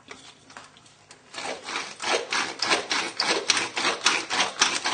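Pepper mill grinding in quick repeated twists, about four rasping strokes a second, starting a little over a second in.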